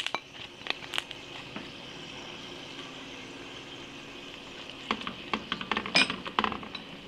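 Onion paste, ginger-garlic paste and ground spices sizzling steadily in hot oil in a cooking pot. A few clicks of a spoon against the pot near the start, then a quick run of spoon knocks and scrapes from about five seconds in as the masala is stirred.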